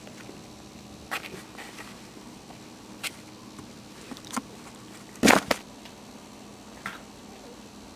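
A few scattered sharp taps and knocks from Maltese puppies moving about on a cardboard box and wire crate, the loudest a quick double knock about five seconds in, over a faint steady hiss.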